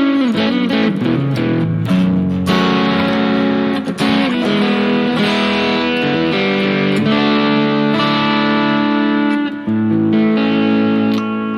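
Harley Benton Fusion electric guitar played with the neck humbucker split to single-coil, through an amp modeler: notes sliding down in pitch in the first second, then sustained ringing chords and notes changing every second or two.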